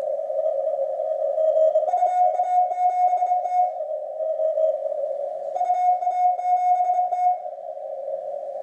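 Morse code (CW) received on an Icom IC-7300 transceiver on the 15 m band, heard from its speaker. A mid-pitched keyed tone comes in two stretches of about a second and a half each, over steady static squeezed into a narrow pitch band by the receiver's CW filter.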